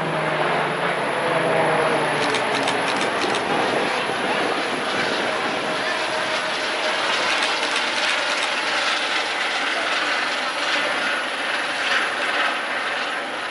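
Aircraft engines heard overhead: a steady rush of noise from a formation of KT-1B turboprop trainers flying past, with helicopters also in the air.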